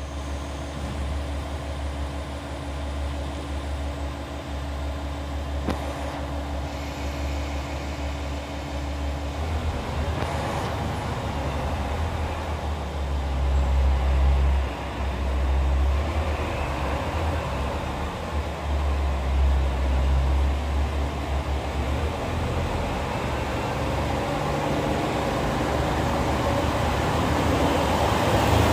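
Diesel train running with a steady low engine rumble, growing louder toward the end.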